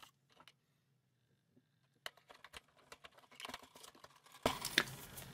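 AA batteries being pushed into the plastic battery compartment of a toy foam-dart blaster: scattered small plastic clicks and taps, starting about two seconds in and getting busier, with a louder rustle near the end.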